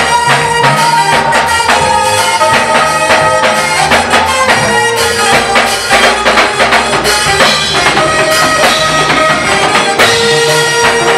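Instrumental praise music: drums keeping a steady beat under long held lead notes, with no singing.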